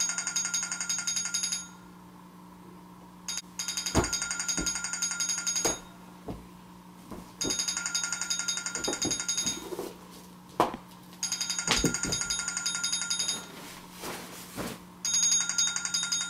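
Tablet's wake-up alarm ringing in repeated bursts of a high, rapidly pulsing tone, each about two seconds long and about four seconds apart. A few knocks sound in the gaps.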